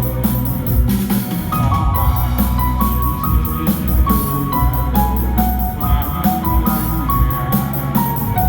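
Music with a steady drum beat, heavy bass and a keyboard melody of held notes stepping between a few pitches.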